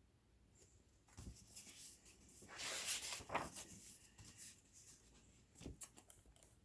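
Paper pages of a picture book rustling and sliding as a page is handled and turned, with a couple of soft knocks against the book.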